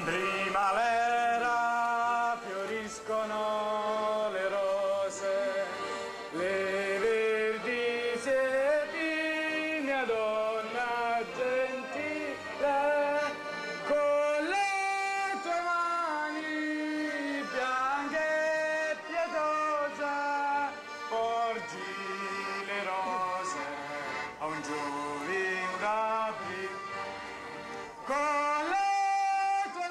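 Italian folk music played on several accordions with acoustic guitars: a tune of held melody notes stepping up and down.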